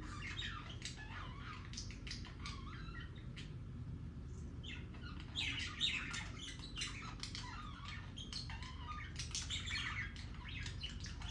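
Budgerigars warbling and chirping in a rapid, continuous chatter, thinning briefly about four seconds in and thickening into denser bursts around halfway and again near the end. It is the contented warble budgies make when courting.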